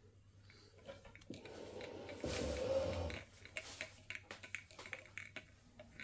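Heavy curtain fabric rustling as it is pulled up off the floor and unfolded, swelling to its loudest about two to three seconds in, then a run of light scrapes and clicks as the cloth is handled.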